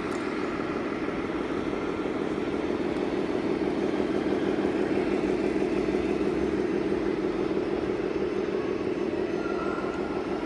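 Radio-controlled scale model trucks running, giving a steady low rumble that swells slightly midway.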